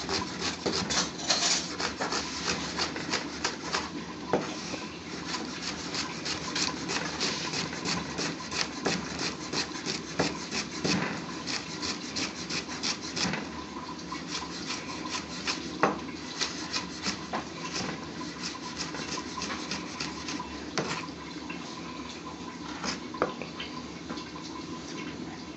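Chef's knife chopping sliced onion on a plastic cutting board: quick, repeated knife strikes several times a second. The strokes thin out in the second half.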